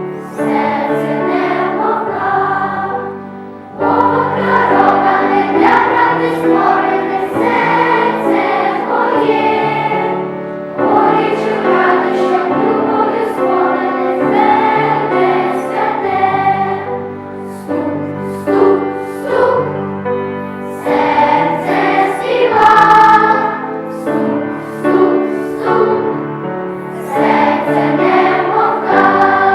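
A choir singing, in long phrases with short pauses between them.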